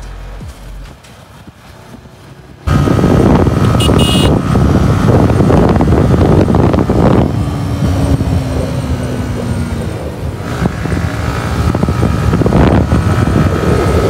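Yamaha R15 motorcycle being ridden at speed: loud rushing wind on the microphone with the engine running under it. It comes in suddenly about two and a half seconds in, after a quieter stretch.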